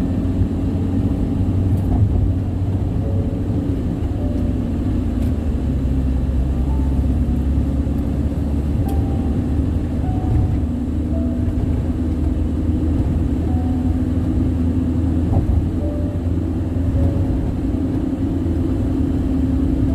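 Car tyre noise on a toll-road surface: a steady, loud low rumble that the owner finds unusually loud.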